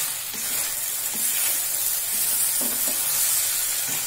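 Egg chilli frying in a stainless steel kadai: fried egg pieces, onion and capsicum in sauce sizzling steadily while a wooden spatula stirs and tosses them against the pan.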